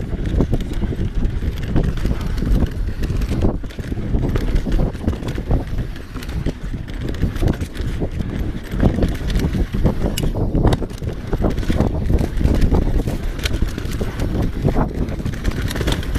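Mountain bike ridden fast down a dirt singletrack, heard from the rider's own camera: a heavy rumble of wind on the microphone and tyres on dirt, with a constant clatter of knocks as the bike rattles over bumps.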